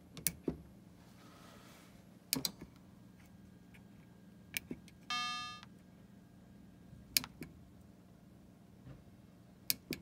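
Taxi pinball sound board running its sound test through a small bare speaker: a few scattered clicks and, about five seconds in, one short buzzy tone that fades out, over a faint steady hum.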